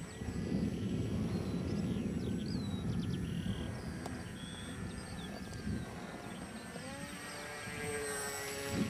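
Steady low rumble of wind on the microphone with faint bird chirps; about seven seconds in, the whine of the AXN Floater's electric motor and propeller rises in pitch and holds as the model flies past.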